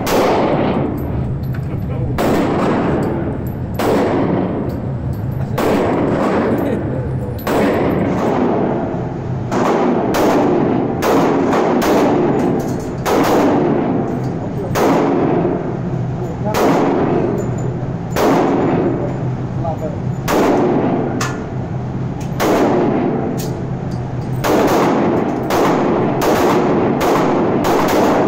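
Pistol shots fired in an indoor shooting range, irregular single shots and quick runs of two or three, roughly one to two a second. Each shot is followed by a short ringing echo off the range walls.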